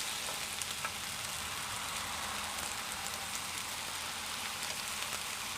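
Mushrooms frying gently in a Ridgemonkey pan on a very low heat: a steady soft sizzle with faint small crackles.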